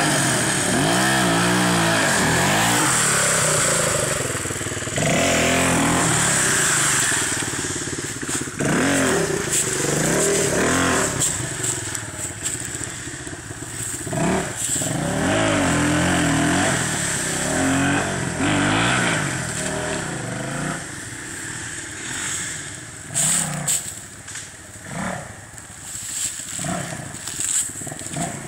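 Dirt bike engine revving hard in repeated bursts, its pitch climbing and dropping every couple of seconds, as the bike churns through a deep mud hole. The revving grows weaker and more broken in the second half, with a few sharp knocks near the end.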